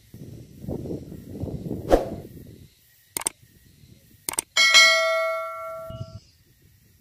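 Subscribe-button animation sound effect: a mouse click, then two quick clicks, then a bright bell ding that rings for about a second and a half and fades away. It is preceded by a low rustling noise with a sharp knock.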